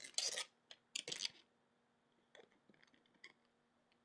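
Thin protective plastic wrap crinkling as it is pulled off a laptop: two short rustling bursts in the first second and a half, then faint scattered crackles.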